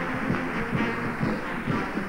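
A brass band of cornets, horns, euphoniums and basses playing sustained notes over a quick, steady drum beat.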